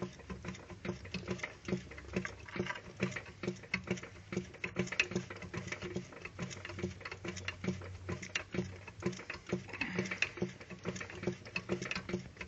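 Audi A8 D3 engine knocking in an even rhythm, about three to four light knocks a second over a low hum. The knock is blamed on a connecting rod.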